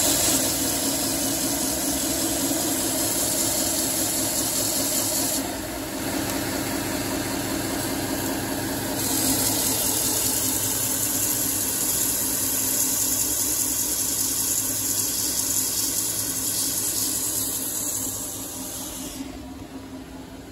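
Grizzly belt sander running, its abrasive belt grinding against a pair of clamped knife-handle scales being sanded as one piece. The high grinding hiss eases off for a few seconds about five seconds in, then comes back, and the sound fades near the end.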